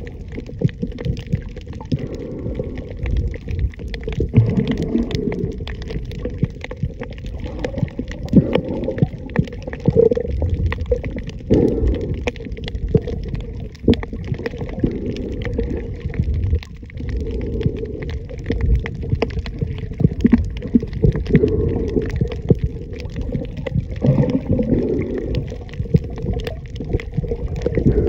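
Underwater sound picked up by a submerged camera: muffled, low water noise with gurgling that swells and eases every few seconds, and a constant scatter of small clicks and crackles.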